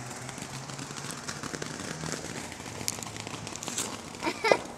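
Ground fountain firework spraying sparks: a steady hiss with rapid crackling pops.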